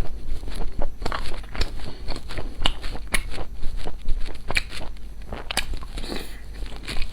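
Close-miked eating: irregular crunchy bites and chewing, with sharp crackling clicks every fraction of a second.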